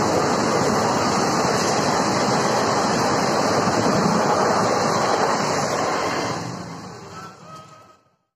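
Passenger coaches of an express train rushing past at speed, a steady rush of wheels on rails, fading out near the end.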